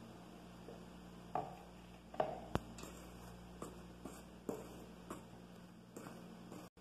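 Faint scraping and soft knocks of a silicone spatula stirring dry flour in a stainless steel pot, with one sharper tap about two and a half seconds in.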